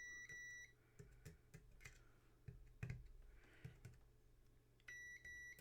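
AstroAI multimeter's continuity beeper sounding a steady high tone for under a second, then cutting off; a few faint clicks follow, and about five seconds in the beep sounds again. The beep signals that the probes are bridging closed contacts in the jeep's headlight switch.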